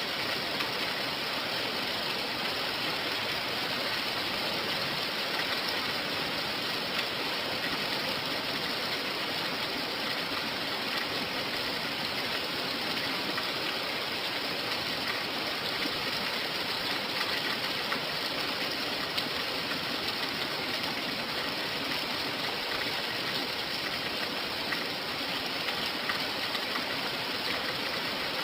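Steady rain falling: an even, unbroken hiss of water.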